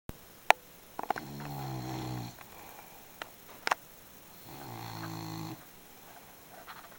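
A sleeping pet snoring: two low snores of about a second each, some three seconds apart. A few sharp clicks fall between them, the loudest about half a second in.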